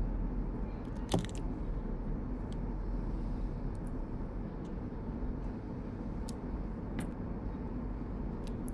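Steady low background hum, with a few light clicks and taps as an opened smartphone and its small parts are handled; the sharpest click comes about a second in.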